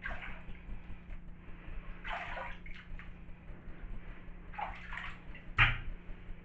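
Bathwater splashing and sloshing in short bursts as a leather Timberland boot kicks and swishes through a filled bathtub. The loudest splash, with a dull thud, comes about five and a half seconds in.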